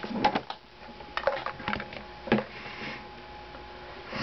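A few scattered light clicks and taps, the loudest a little past two seconds in, over a faint steady room hum.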